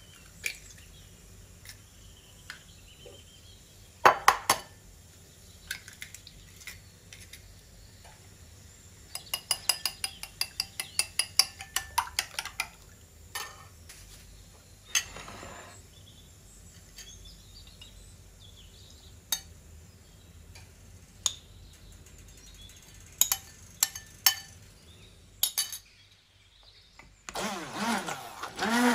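Eggs knocked sharply against a ceramic bowl and cracked, then a fork beating them in the bowl with a quick run of metal-on-ceramic clinks, followed by scattered clinks. Near the end a hand-held immersion blender starts up, its motor wavering in pitch as it blends egg and banana.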